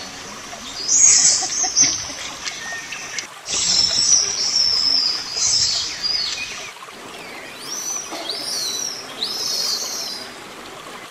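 High-pitched animal calls: hissy chirping bursts in the first half, then about four arching, rising-and-falling whistled calls in the second half.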